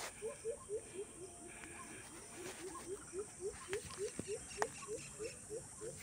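An animal calling in a regular series of short rising notes, about four a second, with one sharp click about two-thirds of the way through.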